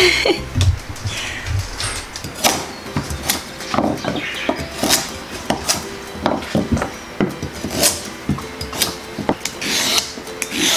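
Chef's knife cutting raw carrots on a wooden cutting board: a string of irregular sharp chops and knocks of the blade on the board, with a longer rasping scrape near the end.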